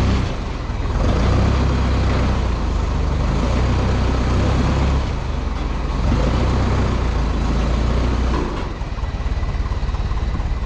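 Forklift engine running under load as it drags a heavy cast-iron grinding machine; the engine eases back about halfway through and again near the end.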